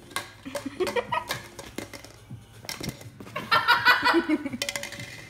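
People laughing, loudest about three and a half seconds in, over light taps and knocks of a plastic cup being nosed and pushed about on a vinyl mat by a puppy.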